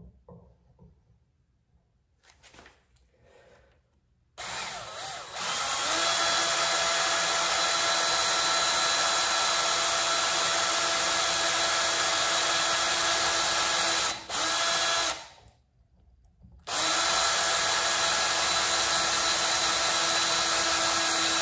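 Cordless drill with a 3/32-inch bit drilling a small pilot hole into a motorcycle handlebar held in a vise. The motor starts about four seconds in and runs at a steady high whine, stutters briefly, stops for about a second and a half, then starts again.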